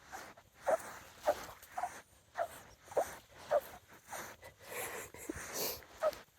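Footsteps in squeaking beach sand: each step gives a short squeak, like a seal barking, at a steady walking pace of nearly two steps a second.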